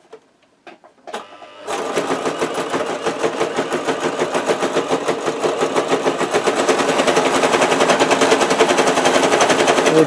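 Brother JS-23 sewing machine sewing at speed, starting up about a couple of seconds in and clattering loudly and rapidly. The rattle is a sign of its fault: the shuttle hook binds and the machine runs hard with a knock.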